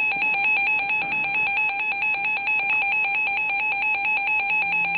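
NOAA weather radio receiver sounding its alert alarm: a loud, fast, evenly pulsed electronic beeping. It signals that a new warning is being broadcast.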